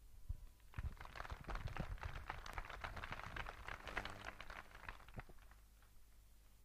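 Audience applauding, faint, starting about a second in and dying away near the end.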